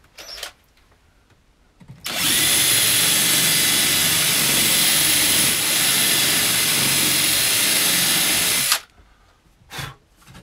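DeWalt cordless drill spinning a sanding drum inside a hole in a plywood panel, sanding a too-snug hole wider. It starts about two seconds in, runs steadily with a brief dip midway, and stops about nine seconds in.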